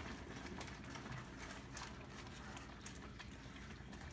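Pot of mung bean soup simmering with faint bubbling, and soft sloshing and light scattered clicks as a utensil pushes leafy greens down into the liquid.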